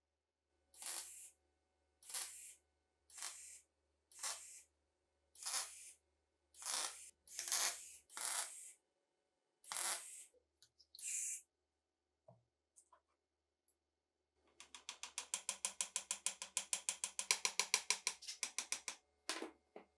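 A string of about ten short electric welding tacks, each a half-second crackling hiss, a second or so apart. Later, a fast even run of strokes at about ten a second for some four seconds, then one more short burst.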